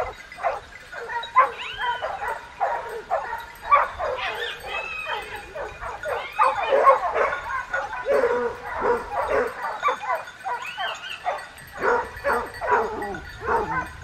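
A pack of hunting dogs barking together: many dense, overlapping barks, with now and then a longer cry that rises and falls in pitch.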